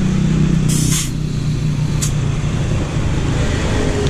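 A motor vehicle engine running steadily, with a short burst of hiss just before one second in and a brief sharp click about two seconds in.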